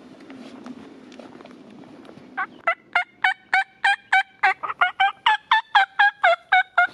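A long, even run of loud turkey yelps, nearly twenty at about four a second, starting a couple of seconds in over a low steady rushing noise.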